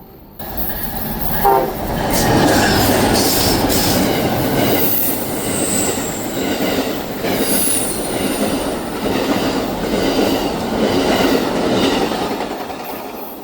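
Train passing close by: a loud, steady rush of wheels on rail with a rhythmic clickety-clack over the rail joints and a few short, high wheel squeals in the middle.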